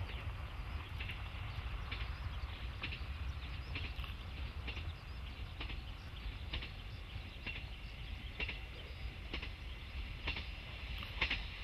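Distant JR KiHa 40-series diesel railcar approaching along the line, heard as a steady low rumble. Short high bird chirps recur about once a second over it.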